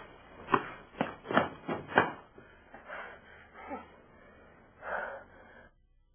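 A person's gasps and strained breaths: a quick run of short, sharp ones in the first two seconds, a falling moan about three and a half seconds in and a last breath near five seconds, then the sound cuts off.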